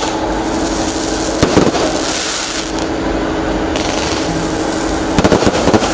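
Fireworks going off: a continuous hiss of burning fireworks, with a sharp bang about a second and a half in and a quick run of bangs near the end.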